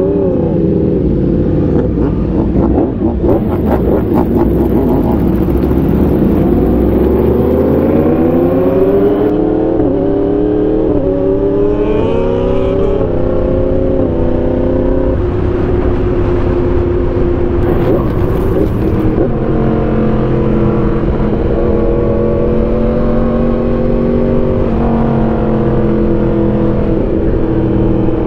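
Motorcycle engine under way, accelerating through several gear changes, its pitch climbing and dropping back with each shift. It then holds a nearly steady cruising pitch.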